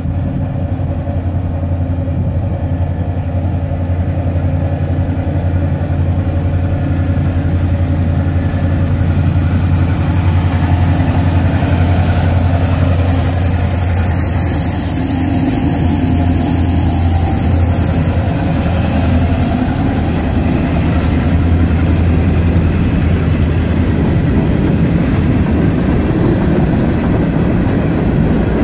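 CN GP38-2 diesel locomotive's engine growing louder as it approaches and passes, with a steady low drone. In the second half the freight cars roll by, adding wheel noise on the rails.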